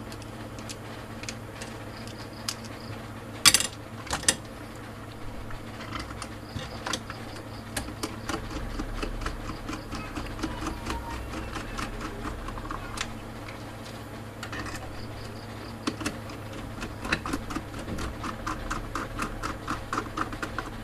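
A hand screwdriver driving screws into a plastic electrical utility box, with scattered clicks and ticks as the screws turn, two sharper knocks about three and a half and four seconds in, and a fast even run of clicks near the end.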